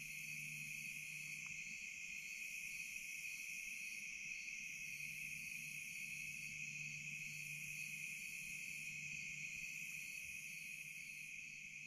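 Night insect chorus: crickets trilling in a steady high drone, with a second, higher insect chorus pulsing above it and swelling and fading in waves every couple of seconds. A faint steady low hum lies underneath.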